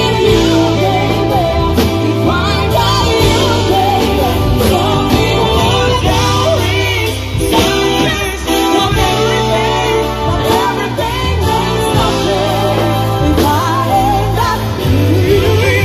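Live band playing a song: two vocalists singing over electric guitar, keyboard and drums, with a steady low bass line underneath.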